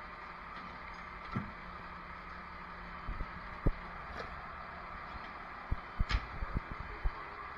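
A steady low hum with scattered knocks and thumps: one about a second in, a few around three seconds, and a quick cluster near the end, as a firefighter climbs into a fire engine's cab and knocks against its door and fittings.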